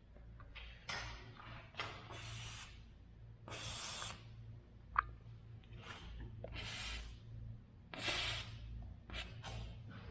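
Aerosol garage door lubricant sprayed in a series of short hissing bursts, about ten of them at irregular spacing, with one sharp click about halfway through.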